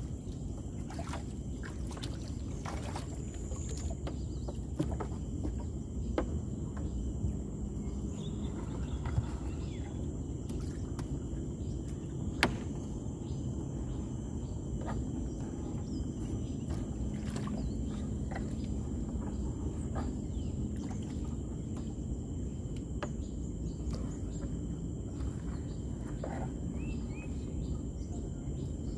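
Outdoor ambience: a steady low rumble of wind or water noise, insects droning at steady high pitches, and scattered faint clicks and taps.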